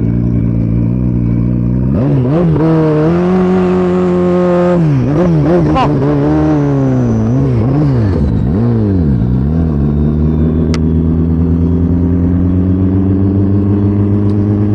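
Turbocharged 2023 Suzuki Hayabusa's inline-four engine. It runs at steady revs, steps up about two seconds in, rises and falls several times between about five and nine seconds in, then settles to a steady idle.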